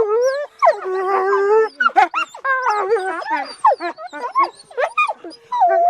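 Several wolves howling together in a chorus of overlapping, wavering voices. After about two seconds the long howls break up into shorter rising and falling yips and whines.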